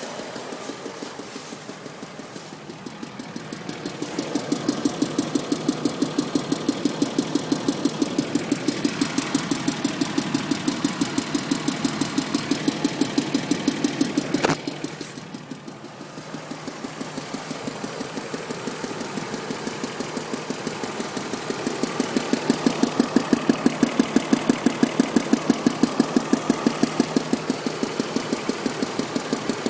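BMW engine idling with a steady, rhythmic knock. The owner cannot tell whether it is a knock or an exhaust manifold or pipe leaking. The knocking swells louder twice, and there is one sharp click about halfway through.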